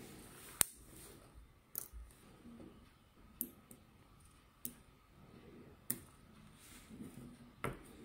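Small neodymium magnetic balls clicking as they snap onto one another, a sharp click every second or so, with faint handling rustle between.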